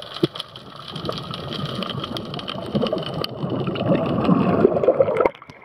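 Underwater rumble of a diver's exhaled bubbles rushing past the camera, building over about four seconds and stopping abruptly near the end, with light crackling clicks throughout.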